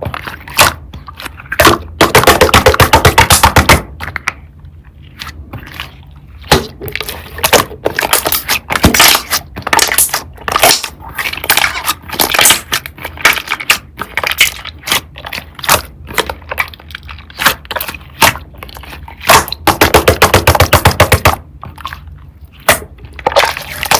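Slime being squeezed and stretched by hand, making rapid wet clicks and pops. The densest, loudest runs of popping come about two to four seconds in and again a few seconds before the end.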